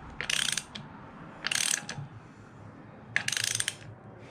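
Hand ratchet wrench clicking in three short runs as bolts on an LS V8's timing chain cover are tightened down.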